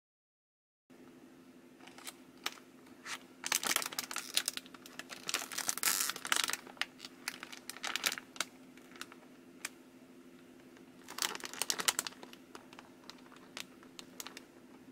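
Plastic wrapper of a Kracie candy-kit packet crinkling as it is handled, in two spells of crackling about four and eleven seconds in, over a steady low hum.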